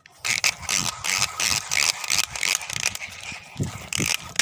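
Rapid, irregular rattling and scraping close to the microphone while a hooked fish is being hauled in, the sound of the phone being jostled and rubbed during the fight.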